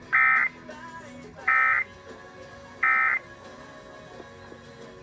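Emergency Alert System end-of-message signal: three short bursts of SAME digital data tones about a second apart, marking the end of the alert, over a faint music bed.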